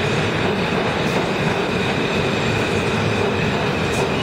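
New York City subway train moving along a station platform: a continuous rumble of wheels on rail with a steady high-pitched whine over it.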